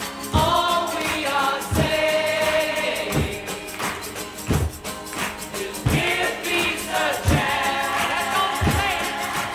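Background music: voices singing over a slow, steady beat that thumps about once every second and a half.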